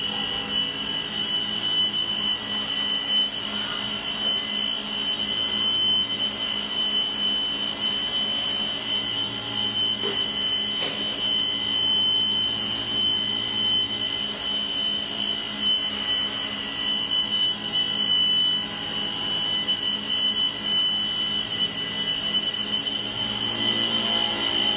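A motor running steadily with a constant high-pitched whine over a low hum, unchanging throughout, as in a continuous run test.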